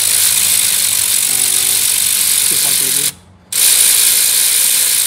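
Cordless electric ratchet running, spinning off the exhaust manifold nuts. It runs for about three seconds, stops briefly, then runs again for about a second and a half.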